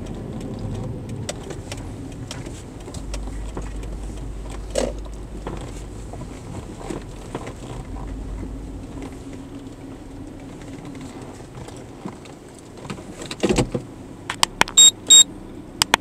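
Car cabin noise, with a steady low road and engine rumble that fades out about twelve seconds in. Near the end comes a thump, then several sharp clicks and two short high beeps.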